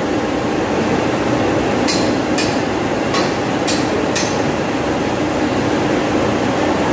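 Steady loud drone of running cooling-tower machinery. About two seconds in come five sharp metallic clinks roughly half a second apart, from the chain hoist as the motor is lowered.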